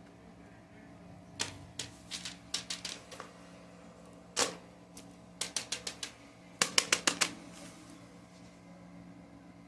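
Fidget toys clicking in quick runs of sharp clicks, starting about a second and a half in and stopping a little after seven seconds; the last run is the loudest.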